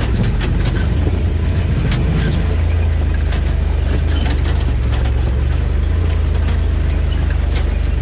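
Side-by-side UTV engine running at a low, steady drone while crawling over a rough, washed-out trail, with scattered knocks and clatter throughout.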